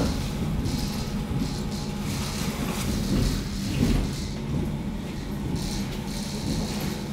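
Inside the motor car of a 413-series electric train rolling slowly as it pulls into a station: a steady low rumble of wheels and running gear, with brief hisses now and then.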